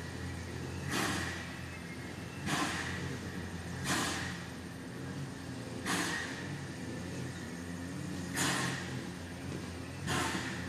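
Steam locomotive AB 778, an AB-class 4-6-2, standing in steam and giving six short hisses of steam at uneven gaps of one and a half to two and a half seconds, each dying away, over a low steady hum.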